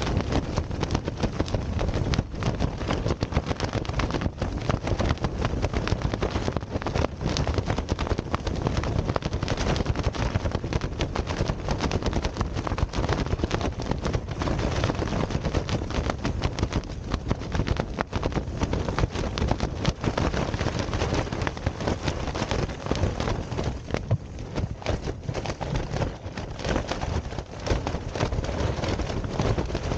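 Storm wind battering a Pumori mountain tent, heard from inside: the fabric flaps and snaps in fast, dense cracks over a steady rush of wind. The gusts are strong enough to bend the tent's poles and push the roof in.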